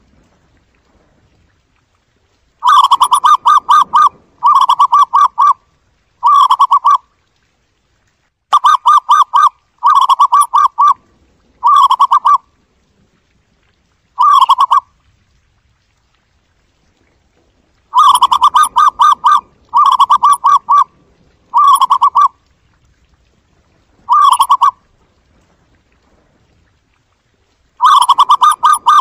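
Zebra dove calling: quick runs of staccato, rippling coos, each phrase lasting up to about a second and a half. The phrases come in series of several, the later ones shorter, with a pause of a few seconds before a new series begins near the end.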